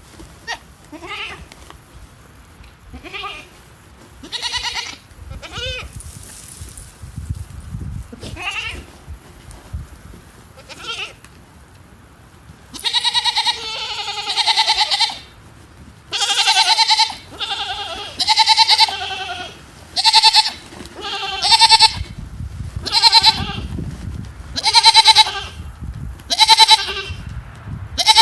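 Goat making a series of high-pitched chirping calls, soft and scattered at first, then from about halfway through loud and regular, one every second and a half to two seconds, each with a shaky, wavering pitch.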